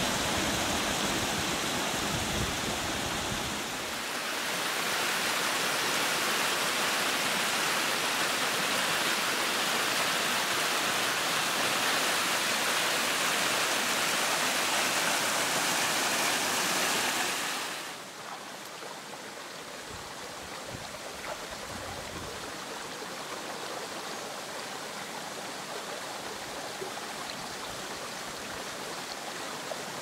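Small waterfall and stream rushing over rocks: a steady wash of water noise that drops to a softer level about eighteen seconds in and carries on evenly.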